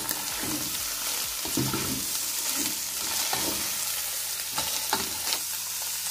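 Julienned carrots and shredded chicken sizzling in hot oil in a pot while being stirred with a slotted spatula, which scrapes against the pot several times at irregular moments over a steady hiss.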